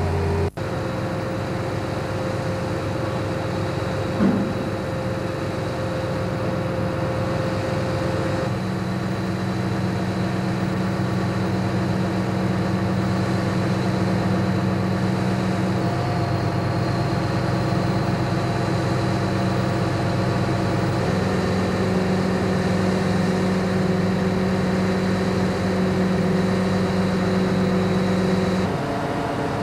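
Heavy mobile crane's diesel engine running at a steady speed, its tone shifting abruptly a few times. A short, louder sound stands out about four seconds in.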